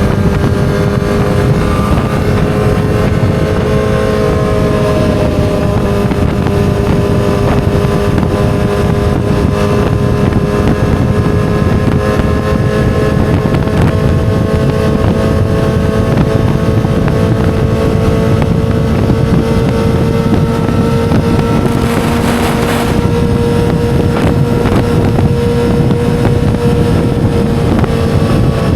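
2007 Yamaha YZF-R6's 600 cc inline-four engine running at a steady, high engine speed, its pitch drifting slightly upward over the stretch, with a brief rush of wind-like hiss about 22 seconds in.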